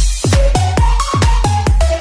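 Electronic dance music: a heavy kick drum with a falling-pitch thud about four times a second under a synth melody.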